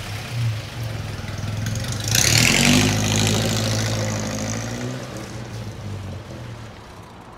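1931 Plymouth PA's four-cylinder flathead engine idling, then rising slightly in pitch as the car pulls away about two seconds in, with a brief burst of hiss at that moment. The engine sound then fades steadily as the car drives off.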